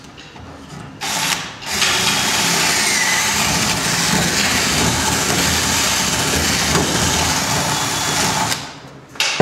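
Cordless drill driving an auger bit into softwood timber: a short burst about a second in, then a steady run of about seven seconds that stops near the end, boring out the last wood at the bottom of a lock mortice.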